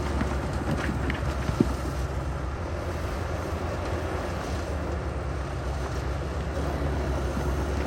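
Heavy diesel engine of earthmoving equipment running steadily with a low drone, with a couple of short knocks about a second and a half in.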